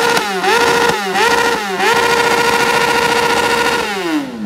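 Suzuki GSX-R sportbike's inline-four engine revved hard: three quick blips in the first two seconds, then held high for about two seconds before the revs drop away near the end.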